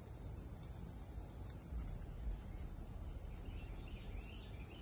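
Steady high-pitched drone of insects in the trees, with faint bird chirps coming in after about three seconds and a low rumble underneath.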